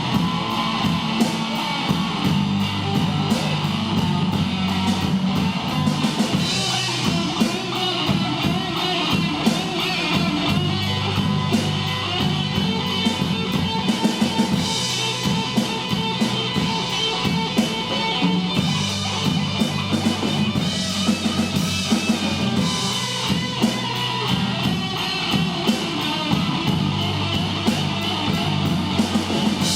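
Live rock band playing an instrumental break between sung verses: guitar over a steady drum kit beat.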